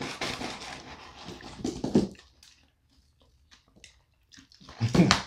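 Paper onion-ring carton rustling as onion rings are shaken out onto the paper wrapper, loudest about two seconds in. Scattered light clicks of handling follow, then a louder short burst of noise near the end as the paper drink cup is handled.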